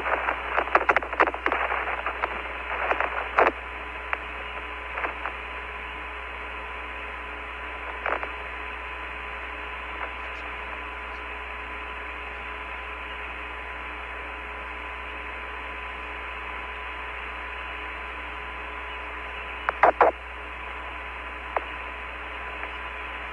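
Steady, narrow-band radio hiss of the Apollo 15 lunar-surface air-to-ground voice channel, with a faint constant tone underneath. Sharp crackles come in the first few seconds, then a short burst about 20 seconds in.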